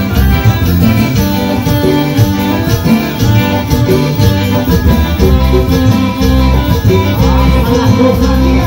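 Live band of electric guitar, drum kit and keyboard playing a son, a Oaxacan regional dance tune, loud through PA speakers with a strong, even bass beat.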